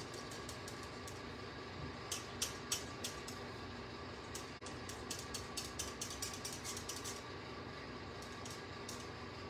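Faint, irregular scratches and taps of an alcohol blending marker's tip on cardstock as a turtle's shell is coloured and blended, over a steady electrical hum.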